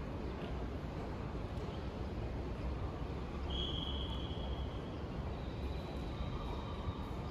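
Steady low outdoor rumble of wind and passing traffic. About three and a half seconds in, a clear high steady tone lasts about a second and a half, then fainter high tones run near the end.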